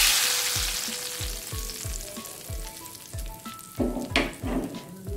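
Hot tempering oil with garlic, cumin and red chillies sizzling as it is poured onto dal: loudest at the start, then dying away over the next couple of seconds. Background music with a steady beat runs underneath.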